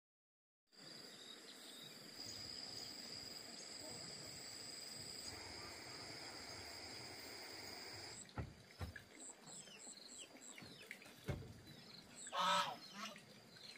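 Countryside ambience: a steady high buzz over a faint hiss for the first eight seconds, then scattered high chirps and a few short knocks, and about twelve and a half seconds in a single loud honking call from a fowl, the loudest sound.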